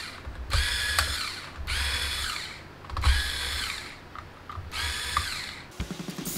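Electric screwdriver whirring in four short bursts, each spinning up, holding and winding down, as it backs screws out of a laptop; the footage is sped up, so the bursts are quick and high.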